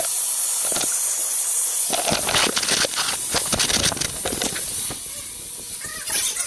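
Electric hand dryer blowing a loud, steady rush of air, switching on suddenly. From about two seconds in, rubbing and knocking sounds mix in and the blowing grows fainter.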